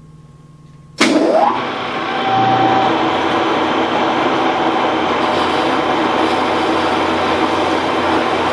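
An Axelson metal lathe is switched on about a second in. Its motor and gearing start suddenly and spin the chuck up with a brief rising whine, then run steadily and loudly while the tool turns a nylon bar.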